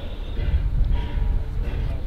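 Steam locomotive No. 81 working steadily as it approaches, its exhaust chuffing at about two beats a second over a low rumble.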